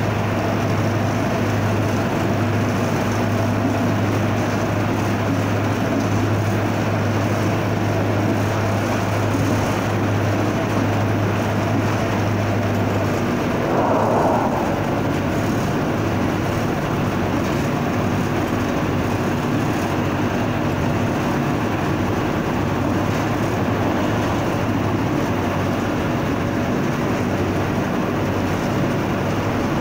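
Diesel locomotive running at speed, heard from inside its cab, with the steady noise of wheels on the rails. A low steady hum from the engine fades out about halfway through. Just after it, a short louder burst stands out for about a second.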